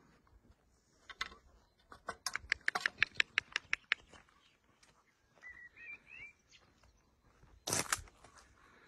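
A small bird gives a few short chirps about halfway through, after a run of sharp clicks, about five a second, lasting a couple of seconds. A short burst of noise comes near the end.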